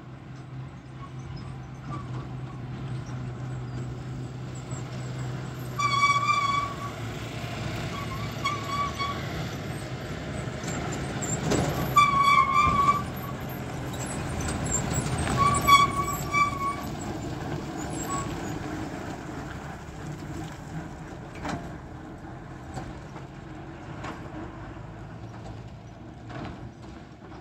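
MSRTC bus's diesel engine running as it rounds a hairpin bend and passes close by, then fading as it drives away. Several short horn honks sound while it comes round the bend.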